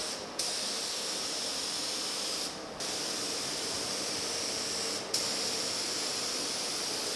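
Compressed-air paint spray gun hissing steadily as it lays down clear coat. The hiss stops briefly three times, between passes.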